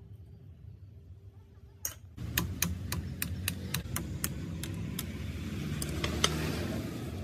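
Rusty old Mitsubishi industrial sewing machine's exposed needle-bar mechanism clicking as it is worked, a sharp metallic click about three times a second starting about two seconds in, over a low steady hum.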